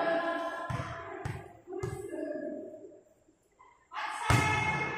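Volleyball match in a gym: spectators' voices and calls echo in the hall, with a few sharp thumps of the ball being hit. The sound drops almost to silence for about a second past the middle, then returns with a loud hit.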